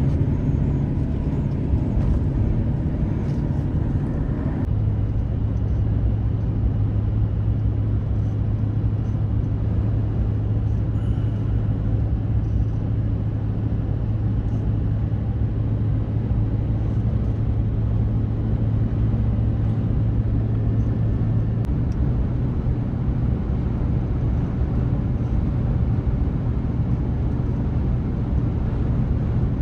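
Vehicle driving at steady highway speed: a continuous low engine hum over road and tyre noise. The hum drops in pitch about five seconds in and rises slightly again later on.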